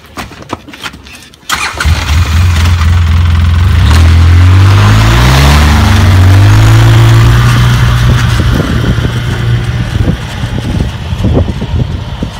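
Polaris Ranger side-by-side starting up about a second and a half in after a few clicks. Its engine climbs in pitch as it pulls away, then runs steadily.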